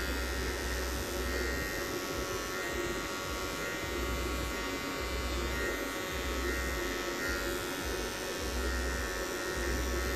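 Wahl electric hair clipper running with a steady buzz as its blade cuts a straight line along the front hairline.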